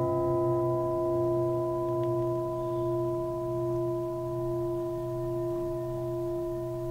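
Background score music: one sustained, bell-like chord ringing steadily over a low, wavering drone.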